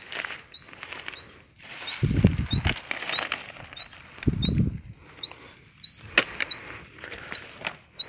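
Leaves and dry litter rustling and brushing as vegetation is pushed aside, with knocks and two low rumbles of handling noise on the microphone. Throughout, a high, short rising chirp repeats about twice a second.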